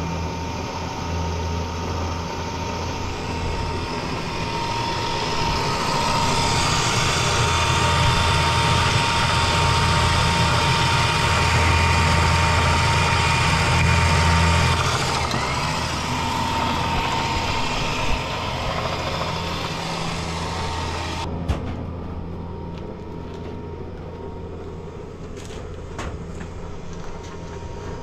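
A truck running, a low engine hum under a steady whine that grows louder through the middle. It cuts off abruptly about 21 seconds in, leaving a quieter space with a few sharp metal clinks from a tow chain being handled.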